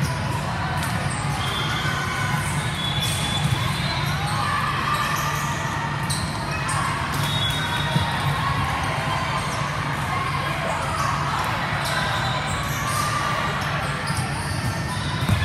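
Echoing din of a busy multi-court volleyball gym: sharp slaps of volleyballs being hit, brief sneaker squeaks, and a steady murmur of players' and spectators' voices.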